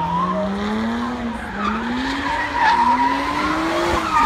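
Jaguar F-Type convertible drifting: its engine note climbs in several rising surges as the driver holds the car in a slide, with the rear tyres squealing continuously.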